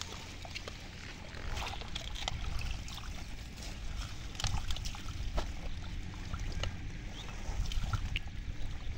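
Hands working in shallow muddy water among water hyacinth, making irregular small splashes, drips and trickles, with scattered short clicks as plants and roots are pulled out.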